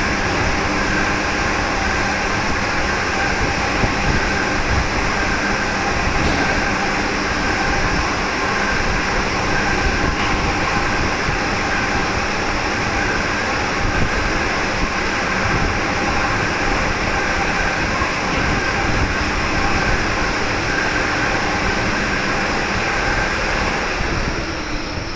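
Machinery running steadily: a loud, even rumbling noise with several steady hum tones, easing off near the end.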